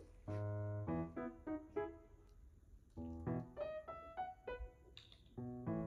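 Background piano music: a chord about every two and a half seconds with a light melody of short notes between them.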